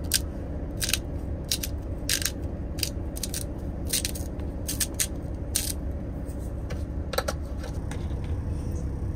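A fork scraping and clicking against a cup of instant noodles in short, irregular strokes while they are stirred and eaten, over a steady low hum.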